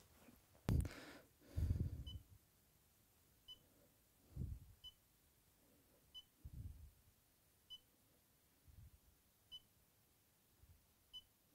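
Smart meter in-home display giving a short, faint, high beep at each button press as it is stepped through past months' usage. Seven beeps come about every one and a half seconds, with soft low thuds of handling between them.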